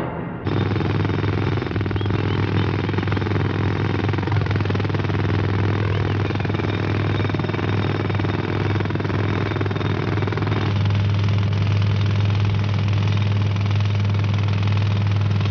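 Pneumatic jackhammers breaking up a stone monument: a loud, steady mechanical din over a low engine-like hum, changing slightly about eleven seconds in.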